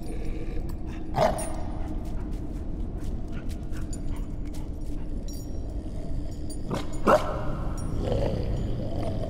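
A wolf-like dog barks sharply twice, about a second in and again near seven seconds, with a short whimper near the end, over a steady low rumble.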